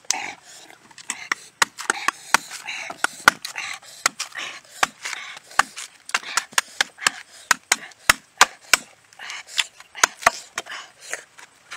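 Machete chopping into the husk of a young green coconut on a wooden block: rapid, irregular sharp chops, about two or three a second.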